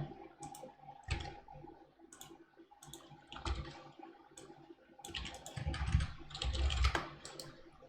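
Computer keyboard typing: irregular keystrokes, coming faster and louder between about five and seven seconds in.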